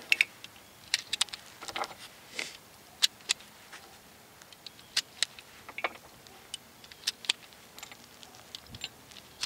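Loose .45 ACP cartridges being thumbed one at a time into a 1911 pistol magazine: irregular sharp metallic clicks, with the light clatter of brass picked up from the table.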